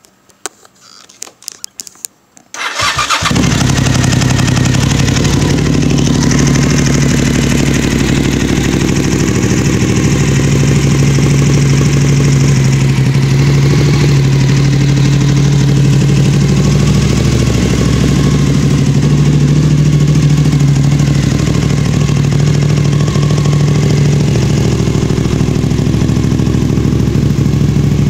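1997 Suzuki TL1000S 996 cc V-twin with a dual M4 full exhaust, starting up about three seconds in after a few faint clicks. It then idles steadily and loud.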